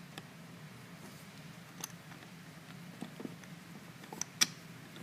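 Scattered light clicks and ticks of a steel lock pick and tension tool working in the keyway of a Master Lock 410 plastic-bodied lockout padlock, the sharpest about four and a half seconds in, over a low steady hum.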